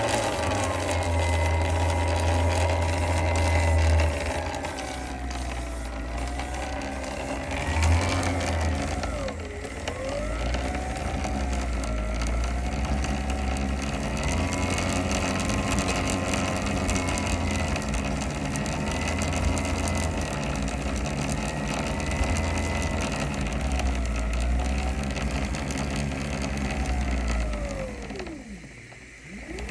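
Talaria MX5 electric dirt bike's motor and chain drive running, the motor whine rising and falling as the throttle is worked, slowing almost to a stop near the end and then picking up again. Mixed in is a clunking, clicking noise from the drivetrain that the owner cannot identify.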